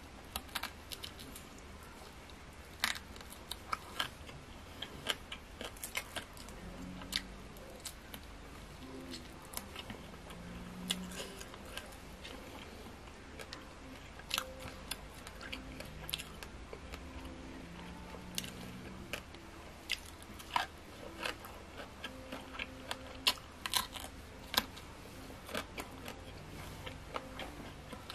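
Close-miked eating: irregular crunches and wet mouth clicks of someone chewing grilled frog and sticky rice.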